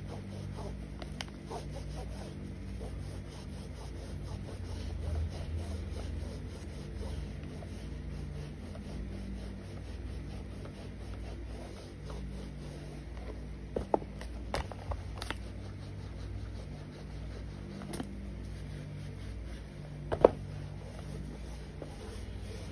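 A wet cleaning wipe rubbing over a sneaker's upper, scrubbing it, over a steady low hum. A few sharp knocks stand out, the loudest past the middle and near the end.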